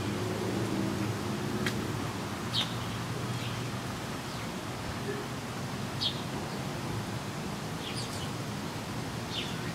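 Outdoor ambience: a steady hiss with a low hum underneath, and a bird giving short, high chirps every second or two.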